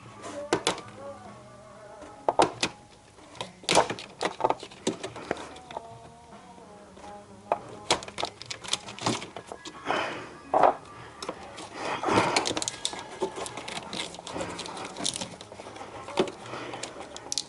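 Irregular clicks, taps and scrapes of a screwdriver prying at plastic clips and trim, with faint music in the background.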